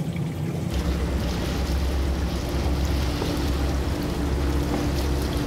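Fishing boat's engine running with a steady low rumble under wind and sea noise, starting about a second in.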